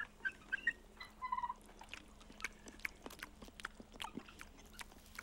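A few short, high chirping calls in the first second and a half, then a man chewing an earthworm with wet, smacking clicks of the mouth.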